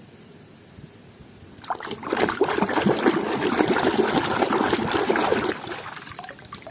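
Water splashing and trickling over a muddy toy as it is washed clean, starting about two seconds in and tailing off near the end.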